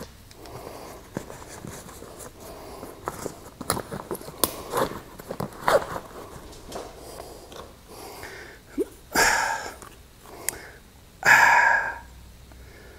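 Rummaging through a tool bag: scattered clicks, clinks and rustling as tools are moved and lifted out. Near the end come two louder, short, rushing bursts.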